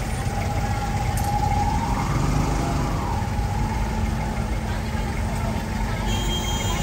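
Street traffic: vehicle engines running and idling with a steady low rumble, one engine note rising and falling briefly about two seconds in.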